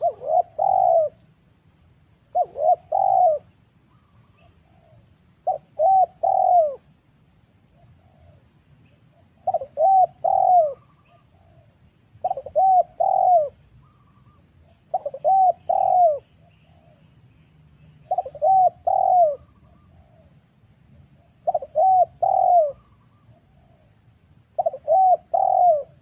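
Spotted dove (tekukur) cooing: a phrase of two or three short, arched coos repeated about every three seconds, nine phrases in all. It is a lure call of the kind played to bring wild spotted doves in.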